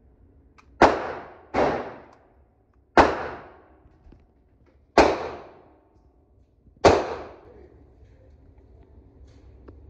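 Five gunshots at uneven intervals, each followed by a short echoing tail in an enclosed indoor range. The blaster is still being loaded while these go off, so they come from other shooters' guns.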